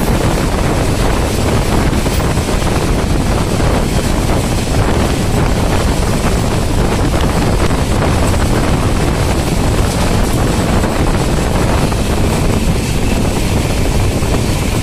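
Steady rumble and rush of a passenger train running along the track, with wind buffeting the microphone.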